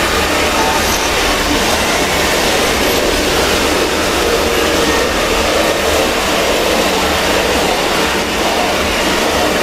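Loud, heavily distorted, bass-boosted meme audio: a steady, dense wall of noise with no clear tone or break.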